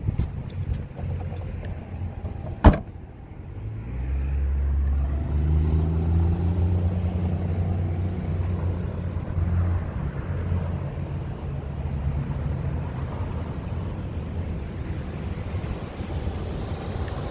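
A single sharp slam about three seconds in, the rear liftgate of the 2012 Chevrolet Traverse shutting. After it comes the steady low hum of the Traverse's 3.6-litre V6 idling.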